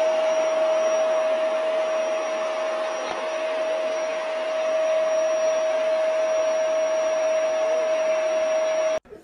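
Appliance motor running steadily, a rushing whir with a high whine held on one pitch, cutting off suddenly about nine seconds in.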